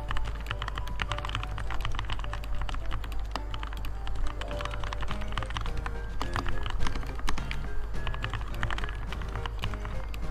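Fast, steady typing on a Redragon K617 60% mechanical keyboard with linear red switches lubed with Krytox 205g0: a quick, irregular stream of keystrokes. Background music plays underneath.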